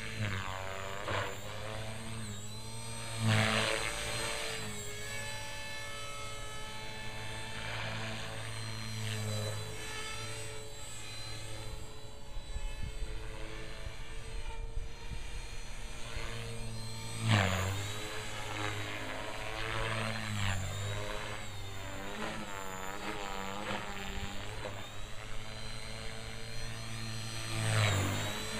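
Radio-controlled model helicopter flying tricks, its motor and rotor whine rising and falling in pitch as it manoeuvres. It grows louder with a swooping change in pitch three times: a few seconds in, about halfway, and near the end.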